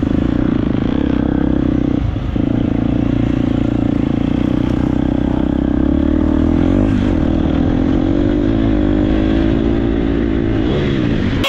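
Dirt bike engine running hard with a steady pitch. The pitch dips briefly about two seconds in, wavers around the middle and dips again near the end as the throttle changes.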